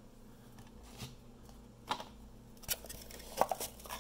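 Light taps and clicks of a cardboard trading-card box and its cardboard insert being handled and set down on a desk, about half a dozen in all, several close together near the end.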